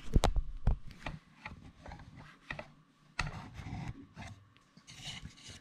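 Handling noise as a camera is moved and set in place: a loud knock at the start, then scattered clicks, taps and rubbing, with a cluster of low thumps a little over three seconds in.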